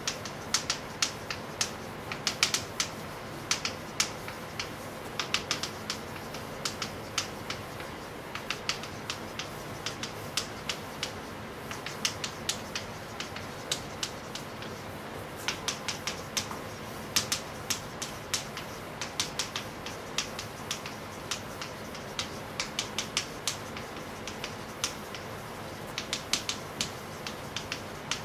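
Chalk writing on a chalkboard: many quick, irregular taps and clicks as the chalk strikes and scratches the slate, over a faint steady low hum.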